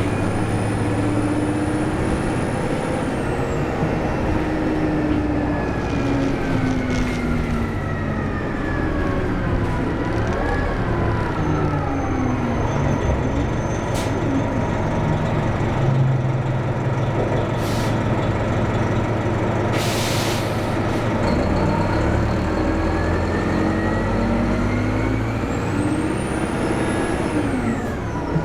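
Nabi 436 transit bus's diesel engine running under load, with a high turbo whistle that falls away about three seconds in and climbs again near the end. The engine pitch drops and rises as the bus slows and speeds up. A brief burst of air hiss comes about two-thirds of the way through.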